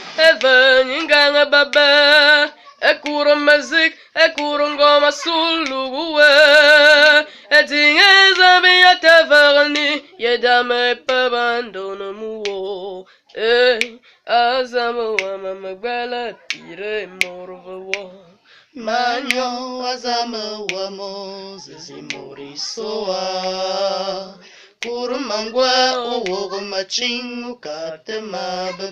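A young person singing solo without accompaniment, close to the microphone: held notes with vibrato, in phrases separated by short pauses.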